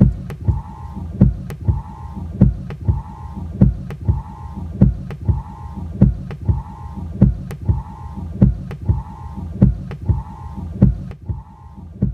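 Suspense soundtrack pulse: low heartbeat-like double thumps about every 1.2 seconds, with a short mid-pitched tone repeating between them. The higher sounds drop away near the end, leaving only the thumps.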